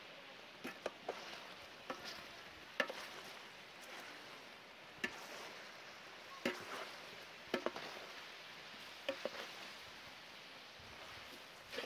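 Beef frying in a pan with a steady sizzle, while a utensil stirs it and knocks against the pan at irregular moments, some knocks in quick pairs.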